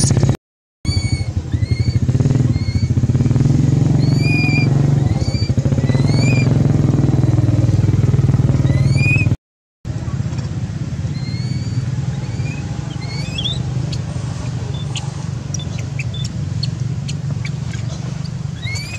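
A motorcycle engine idling close by: a steady low rumble, loudest in the first half and cut off abruptly twice. High, rising, chirp-like calls repeat over it about once a second.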